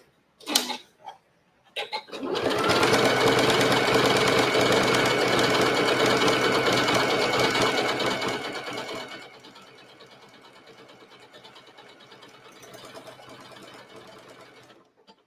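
Domestic sewing machine stitching through pieces of leather. After a couple of clicks it runs loudly and steadily for about seven seconds, then carries on much more quietly until near the end.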